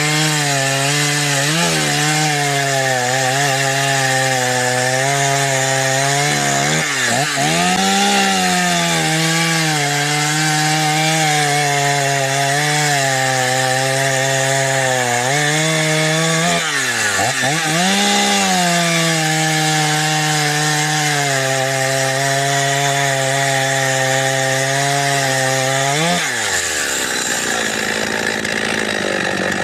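Ported Husqvarna 51 two-stroke chainsaw, fitted with a 257 carburetor and a 254XP muffler, cutting wood at high revs under load. Its pitch dips and recovers twice, and near the end the revs drop away sharply.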